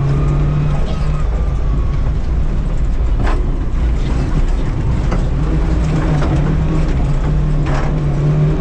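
Rally car engine and drivetrain heard from inside the caged cockpit, running hard under load with its note holding and stepping in pitch as it is driven, over a constant rumble. Two sharp knocks come through the body, about three seconds in and near the end.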